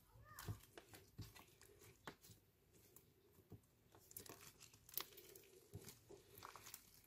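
Clear slime with crushed lipstick mixed in, kneaded, squeezed and pulled apart by hand: faint, irregular sticky clicks and pops.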